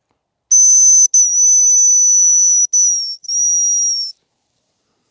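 Hazel grouse decoy whistle (manok) blown in a series of four high, thin whistles, the second the longest and the last two falling slightly at the end, imitating the hazel grouse's call to lure a bird in.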